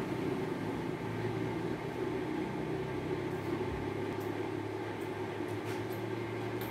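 A steady low mechanical hum, with a few faint ticks in the second half.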